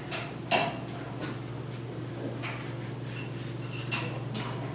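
Metal engine parts and tools clinking together: one sharp clink about half a second in, then several lighter, ringing clinks. A steady low hum underneath.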